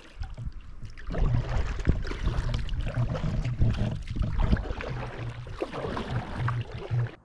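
Kayak paddle strokes splashing and dripping beside the hull, with wind buffeting the microphone in a low rumble. The sound cuts off suddenly near the end.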